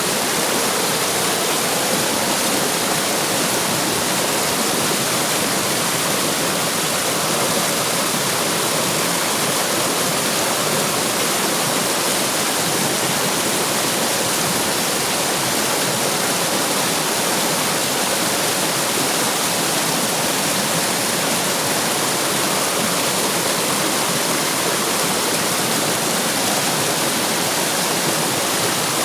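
Running water rushing and splashing over rocks, a steady unbroken rush of a stream or small waterfall.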